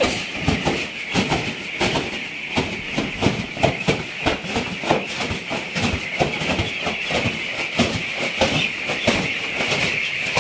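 Massed peeping of a shed full of young chickens, a continuous high-pitched chatter, with many irregular knocks and rustles mixed in.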